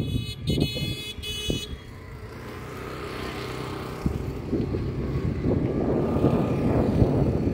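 Car driving up a winding hill road, heard from the cabin: a steady low engine hum that grows louder, with road and wind rush building up in the second half. Three short high tones sound in the first second and a half.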